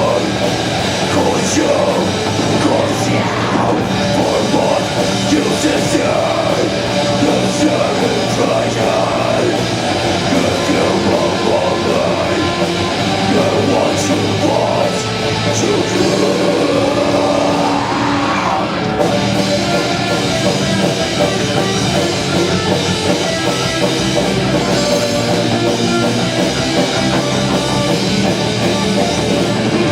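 Live band playing a heavy metalcore song: distorted electric guitars, bass and drums, loud and continuous.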